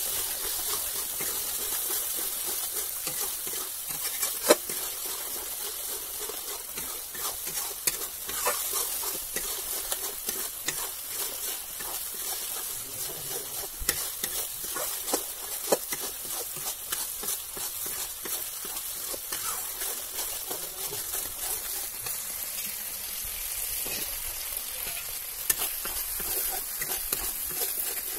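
Turmeric masala frying in oil in a metal kadai, a steady sizzle, while a spatula stirs it with scraping and scattered sharp taps against the pan. The sharpest knock comes about four and a half seconds in.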